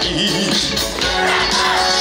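Live trot song played through a concert sound system, with full band accompaniment and a wavering melody line.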